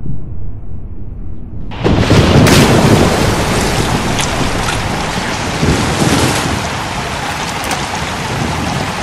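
Storm sound effects in an animated film soundtrack: a low thunder rumble, then heavy rain crashes in suddenly about two seconds in and keeps falling steadily and loudly.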